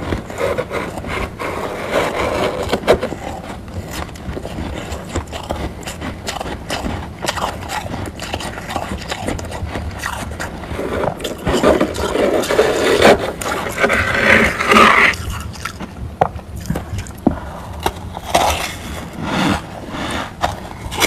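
Crunchy frost being scraped and crushed: a run of crisp crackles and scrapes, with a denser, louder stretch of crunching about halfway through, over a faint steady low hum.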